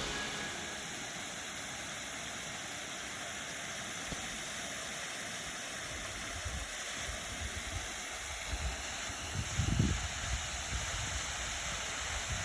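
Waterfall: a steady rush of falling water, with a few low bumps about two-thirds of the way through.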